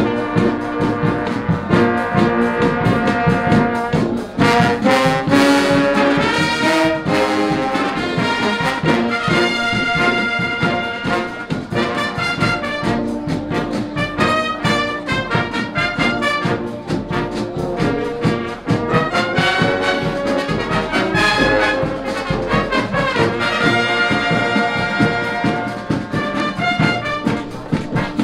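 A drum and show fanfare band playing: massed brass, with trumpets and trombones to the fore, holds and moves through chords over a steady drum beat.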